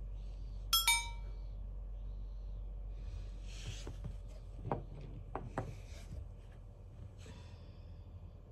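Two quick, bright ringing clinks, like a small chime struck twice, about a second in, over a low steady room hum.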